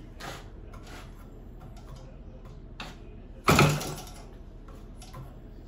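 Small model airplane engine on a test stand being hand-flipped by its propeller: scattered soft clicks, then about three and a half seconds in the engine fires for half a second and dies.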